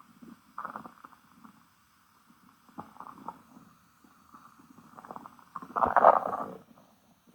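Stomach growling: irregular gurgles and rumbles in short bouts, with the loudest and longest rumble about six seconds in.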